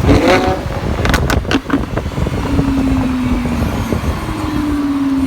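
Lamborghini Huracán's V10 engine coming off the throttle. Its exhaust pops and crackles about five times in the first two seconds, then it runs at steady low revs with a drone that slowly falls in pitch.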